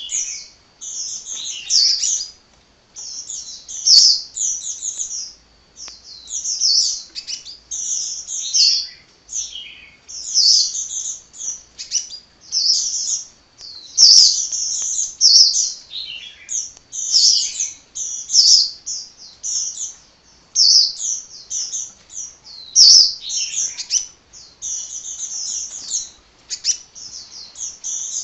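Sunbird (kolibri) singing nonstop: rapid, high-pitched chirping and twittering phrases that follow one another with only brief pauses, with a few sharp clicks among them.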